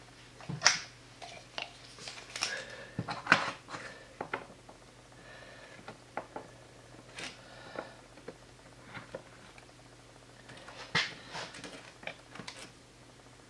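Scattered clicks, knocks and rustles of a hard plastic headlight mount and a cord being handled on a workbench, over a faint steady hum. Near the end a steel tape measure is pulled out against the part, giving a denser run of clicks.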